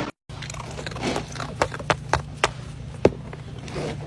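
A series of sharp, separate clicks or taps, about six, over a steady low hum.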